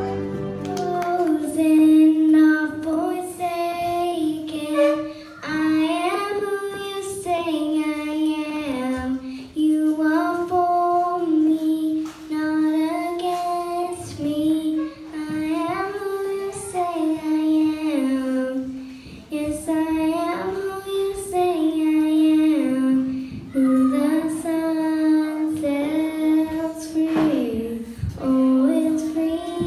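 A young girl singing a slow melody solo into a microphone, unaccompanied, phrase after phrase with short breaths between.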